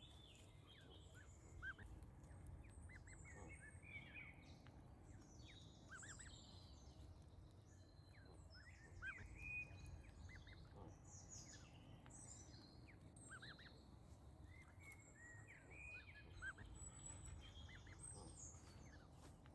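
Birdsong: several birds chirping and trilling on and off, over a faint low background rumble.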